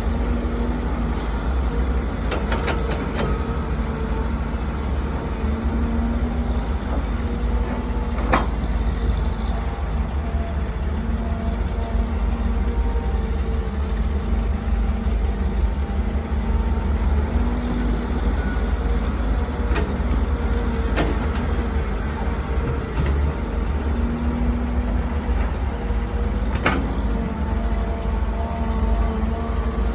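Kobelco SK250 excavator's diesel engine running steadily under load, a low drone with a higher tone that rises and fades as the hydraulics work the arm while it digs and loads earth into a dump truck. A few sharp knocks stand out over the drone.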